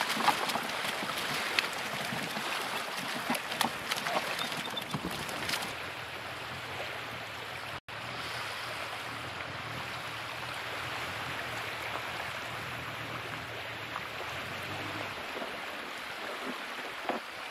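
Shallow water splashing and washing, with many short splashes in the first few seconds, then a steadier wash of rippling water with a faint low steady hum.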